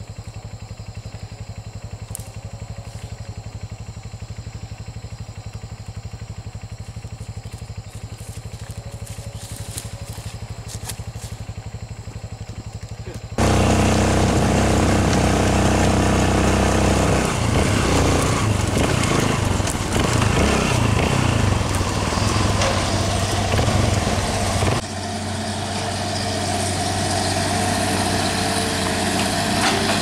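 A steady low engine hum with a fast even pulse, then suddenly a trail motorcycle ridden loudly over a rough bulldozed dirt track, its engine note rising and falling. About 25 seconds in it gives way to the diesel engine of a Hitachi excavator running steadily, slowly growing louder.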